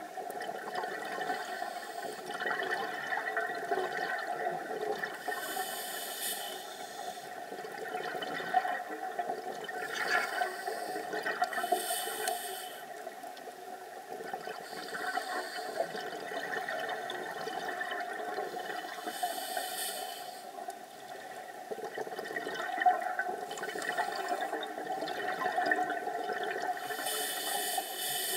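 Scuba diver's regulator breathing underwater: a steady bubbling rush of exhaled air, broken by a short hiss of breath about every six to eight seconds.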